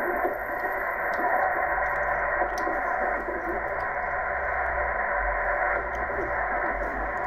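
Shortwave transceiver receiving a 10-metre single-sideband signal on 28.517 MHz, heard through its speaker: steady band-limited hiss with a weak, unintelligible voice under it.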